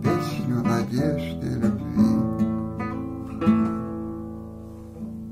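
Acoustic guitar ending a song with strummed chords, the last one struck about three and a half seconds in and left to ring and fade.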